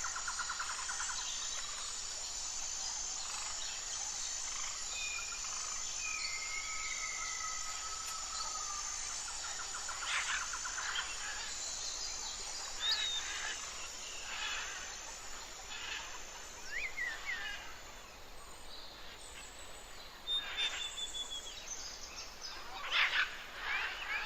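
Wild birds calling and singing: drawn-out whistled notes, rapid trills and short sharp chirps, over a steady high hiss of background ambience.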